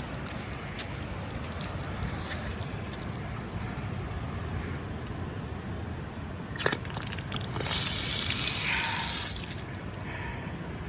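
Water gushing hard from a newly installed outdoor faucet, with the supply just turned back on. The rush starts with a few splashes about six and a half seconds in, runs loud for about two seconds, and then stops.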